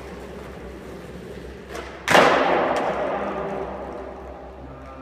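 Skateboard wheels rolling on concrete, then a light tap and, about two seconds in, a loud smack of the skateboard deck hitting the concrete floor, echoing through the concrete parking garage.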